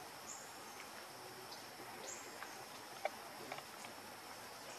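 Faint ambience of insects: a steady, high-pitched drone, with two short high chirps and a few faint ticks.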